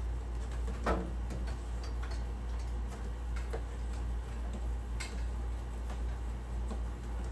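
Electrical wire for a mini-split air conditioner being handled and fed through a hole in the wall: scattered light clicks and taps, two of them sharper, about a second in and about five seconds in, over a steady low hum.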